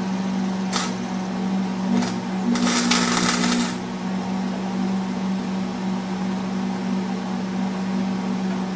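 Wire-feed welder striking an arc on rusty fender metal: two short crackles about one and two seconds in, then a crackling weld about a second long. A steady hum runs underneath throughout.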